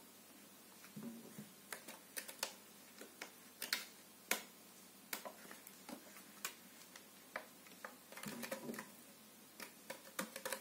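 Faint, irregular clicks and taps, some in quick clusters, from a kitten clambering on a sisal-wrapped cat scratching post and batting at its hanging toys.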